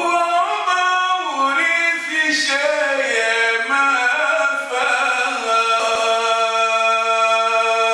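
A man's solo voice chanting a poem, unaccompanied, the melody moving from note to note and then settling on one long held note about five and a half seconds in.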